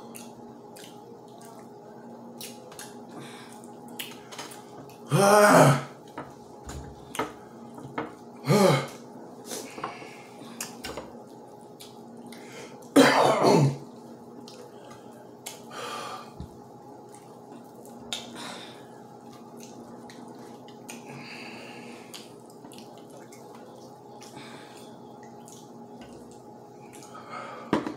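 Mouth and hand noises of people eating very hot fried chicken: frequent short smacks and clicks. Two loud throat-clearing sounds come about five and thirteen seconds in, a reaction to the chilli heat. A faint steady hum runs underneath.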